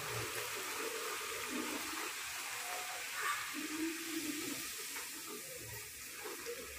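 Spinach puri deep-frying in hot oil in a kadai: a steady sizzle and bubbling that eases off a little near the end.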